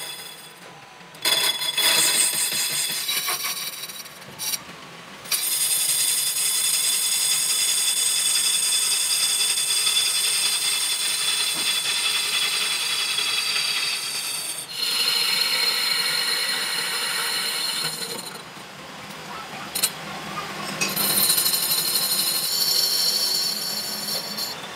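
Metal lathe turning a cast brake disc, the cutting tool scraping the spinning casting with a steady high-pitched ringing squeal. It comes in several stretches whose pitch changes abruptly from one to the next.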